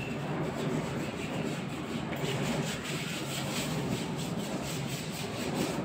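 Oil expeller (screw oil press) running: a steady grinding rub of its drive and press, with a fast regular ticking several times a second.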